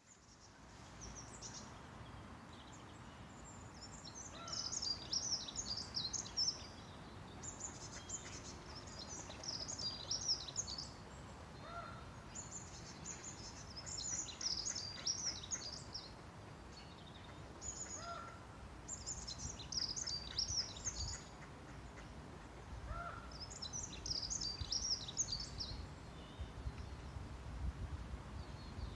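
A songbird singing short, fast, high-pitched phrases of about two seconds, repeated every few seconds with pauses between. A short lower note sounds now and then, over a steady low background rumble.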